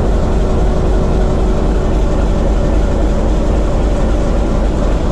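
TEM2 shunting locomotive's diesel engine running steadily under heavy load at the fourth controller position, its generator feeding a water load rheostat at about 300 kW. The engine is being run in after a major overhaul. Heard from inside the cab.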